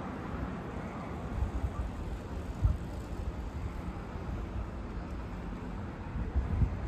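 City street ambience: a steady low rumble of traffic, with wind buffeting the microphone in a few low gusts.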